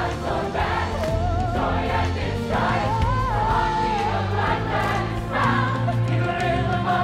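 Stage-musical music: an ensemble singing as a choir over band accompaniment with a steady bass, and a lead voice holding long notes with vibrato.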